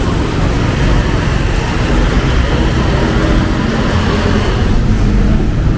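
Busy city street traffic: cars and motorcycles passing close by, with a steady, loud rumble of engines and road noise.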